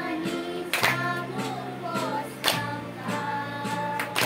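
Young children and a woman singing a song together in unison, with a sharp clap-like beat roughly every one and a half seconds.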